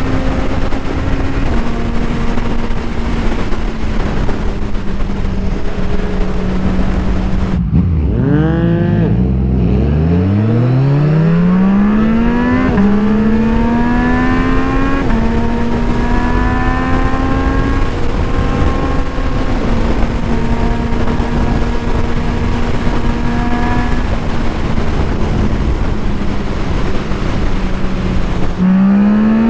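Motorcycle engine running under way with heavy wind noise: a steady engine note, then about 8 s in the revs fall steeply and climb back hard, followed by several gear changes with the pitch stepping and dropping.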